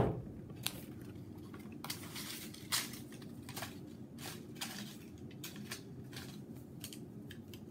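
A hand rummaging through paper slips in a small woven wooden basket: soft rustling and scattered light clicks, over a low steady hum.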